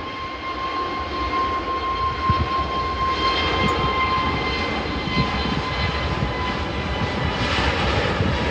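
Jet airliner's engines at takeoff thrust as it takes off: a steady high whine over a deep rumble, growing louder.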